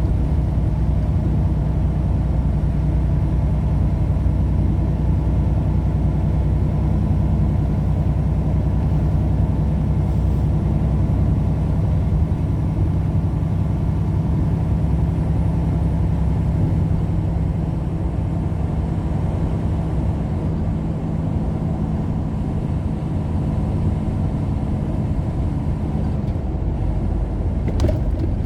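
Steady low hum of a car's engine and tyres while driving, with the engine note shifting about two-thirds of the way through; a brief click near the end.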